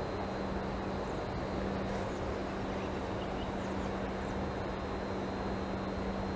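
Steady mechanical drone with a constant low hum and no rhythm, like distant engine noise. A few faint, short, high chirps come and go over it.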